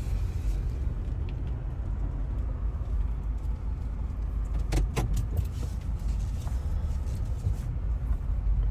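Car driving slowly, heard from inside the cabin: a steady low rumble of engine and tyres, with a few sharp clicks or rattles about five seconds in.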